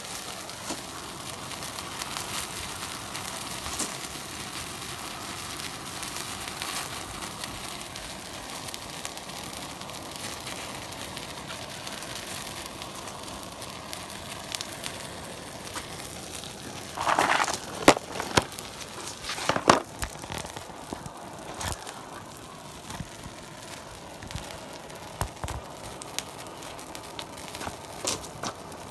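A fire crackling and sizzling steadily, dotted with sharp pops. A louder flare and a few loud pops come about two-thirds of the way through.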